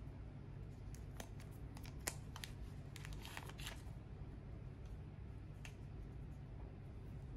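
Gloved hands handling a small action-camera module and its plastic packaging: light clicks and crinkles, with a sharper click about two seconds in and a quick cluster just after three seconds, over a steady low hum.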